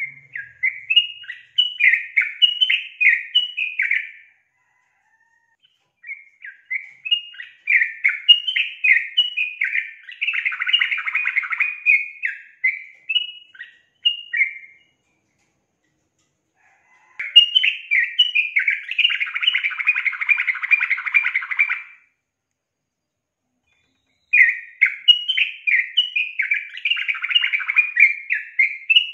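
Female yellow-vented bulbul (trucukan) singing in four bursts of quick chattering notes, each several seconds long, with pauses of two or three seconds between.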